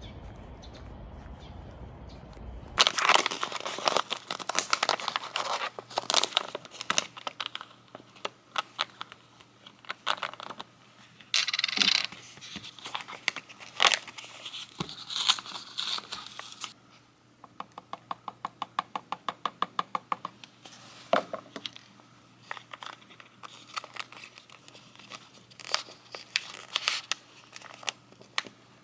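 Close-up handling sounds: crinkling and tearing-like rustles mixed with clicks and taps, with an even run of quick ticks, about five a second, near the middle.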